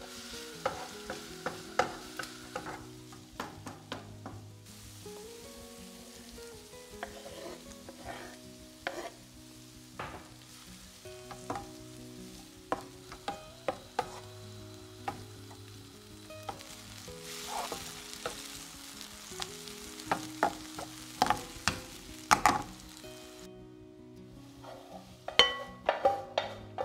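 Chopped onion and garlic sizzling lightly in oil in a nonstick frying pan, with a wooden spatula stirring and tapping against the pan again and again. Near the end the sizzle stops and the spatula scrapes and clicks the pan's contents out, over soft background music with held notes.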